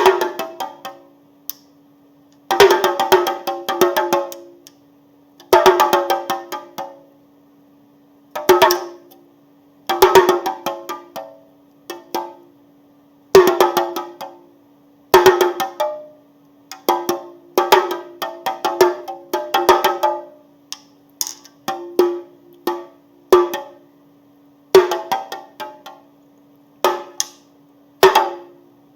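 Chinese drum struck in short bursts of quick, hard beats, a group every two seconds or so, each beat ringing briefly, over a faint steady hum.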